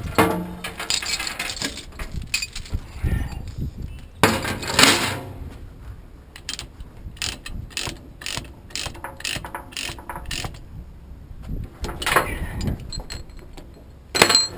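Ratchet chain binders being cranked loose, the pawl clicking in quick repeated runs, with louder clanks of steel transport chain being unhooked and dropped onto the trailer deck.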